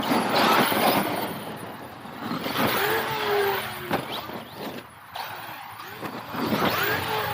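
Traxxas X-Maxx electric RC monster truck driving in three bursts: its brushless motor whines up and down in pitch as it speeds up and slows, over the rushing noise of its tyres on dirt.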